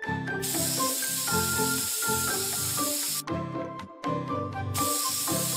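Cartoon spray-paint hiss from a paint nozzle, in two spells: one from about half a second in to about three seconds, and another starting near the end. Light background music plays under it.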